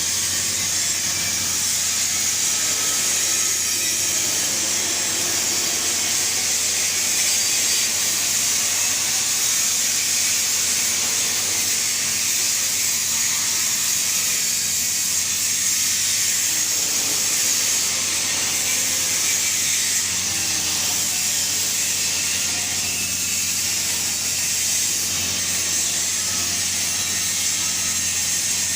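TIG (gas tungsten arc) welding arc burning steadily, a continuous hiss over a low hum.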